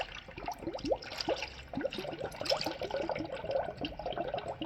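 Fresh coolant being poured from a jug into the radiator filler neck to refill the cooling system, a steady pour with a stream of short rising gurgles and small splashes that grow busier in the second half.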